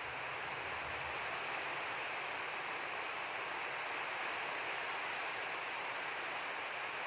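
A steady, even hiss of noise, like rain or rushing water, with no other events.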